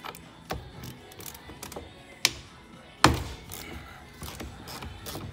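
Light metallic clicks and taps of a socket tool working on the 19mm steering-wheel centre nut of a Land Rover Discovery 1, with two sharp knocks about two and three seconds in.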